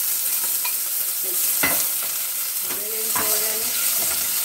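Chopped red onion sizzling in hot oil in a metal pot as a wooden spoon stirs it. The spoon knocks against the pot a few times.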